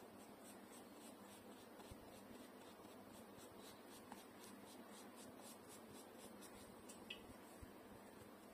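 Faint rhythmic scratching of a flat paintbrush dabbing watercolour onto paper, about three strokes a second, over low room hiss; the strokes stop near the end.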